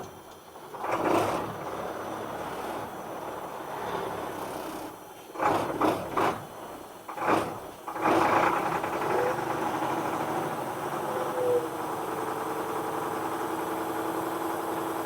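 An International crane truck's engine running just after being brought back to life after sitting, with a few uneven surges in the first half, then settling into a steadier idle from about halfway.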